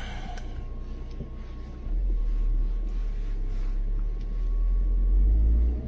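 Deep, steady rumble inside a car's cabin, getting louder about two seconds in, with a faint steady high tone over it that stops near the end.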